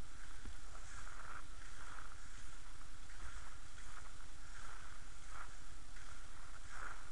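Inline skate wheels rolling on damp asphalt, with a swish from each stride about every 0.7 s over a steady low rumble.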